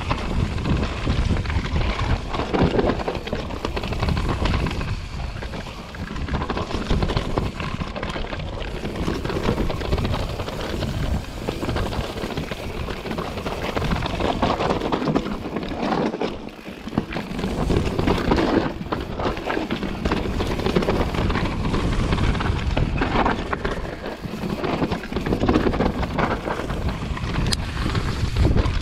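Mountain bike descending a rough rocky trail at speed: steady wind buffeting on the camera's microphone, with tyres rumbling and crunching over loose stones and the bike rattling over rocks and roots.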